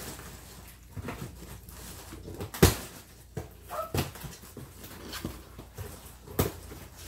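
Cardboard shipping box being opened and handled: rustling and a few sharp knocks of cardboard, the loudest a little under three seconds in. A pet parrot gives one short falling call about four seconds in.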